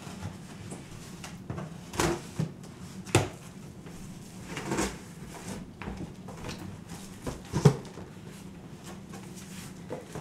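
Cardboard shipping box being slit open with a box cutter and its flaps pulled back: a series of cardboard rips, scrapes and sharp knocks, the loudest about three-quarters of the way in.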